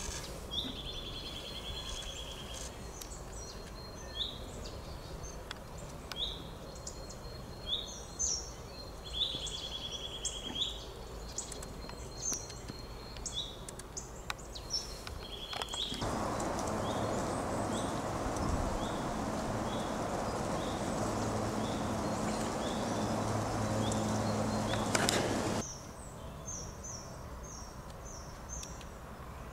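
Songbirds singing, with short repeated chirps and a couple of brief trills. About halfway through, a louder steady rushing noise with a low hum comes in, then cuts off abruptly near the end.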